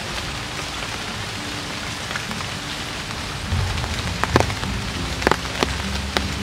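Rain falling on a river's surface, a steady hiss, with a few sharp taps in the second half.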